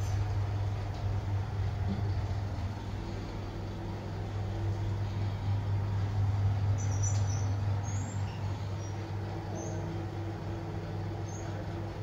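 Otis traction passenger lift car running in its shaft, heard from inside the car: a steady low hum and rumble, with a higher hum that comes and goes and a few faint high squeaks.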